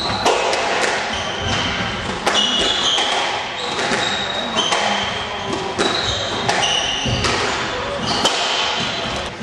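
Squash rally: the ball striking rackets and walls in sharp knocks every second or so, with players' shoes squeaking briefly on the wooden court floor, all echoing in the court.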